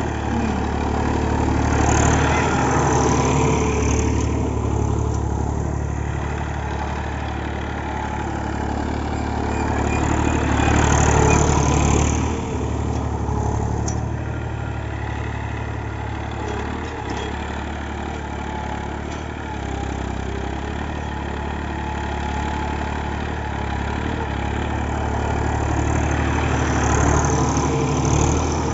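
Massey Ferguson tractor's diesel engine running steadily as the tractor drives over heaps of paddy straw, treading out the rice grain. It grows louder three times, about two seconds in, around eleven seconds and near the end, as it passes close.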